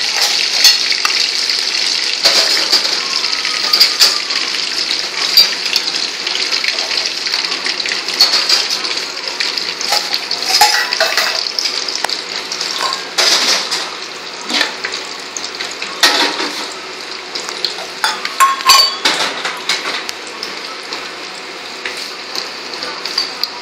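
Hot oil sizzling steadily in a metal kadai as vegetables fry, with a slotted metal ladle scraping and clinking against the pan now and then. The sizzle is a little quieter in the second half.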